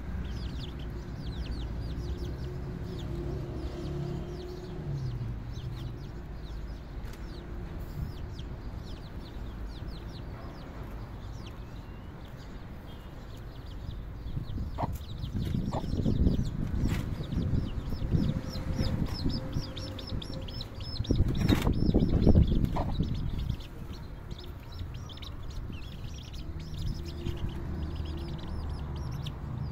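Chicks peeping steadily, many short high chirps a second, over low rumbling noise that gets louder for a few seconds twice in the middle.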